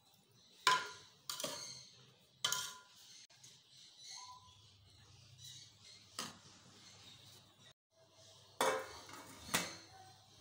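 A metal slotted spatula knocks against a metal cooking pot in a few sharp clinks as chicken in gravy is stirred. Near the end a steel plate is set onto the pot as a lid with two louder clanks.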